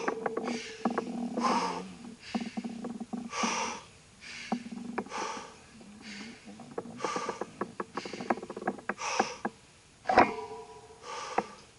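A cyclist breathing hard in a steady rhythm, about one breath a second, while pedalling, with scattered sharp clicks and rattles in between.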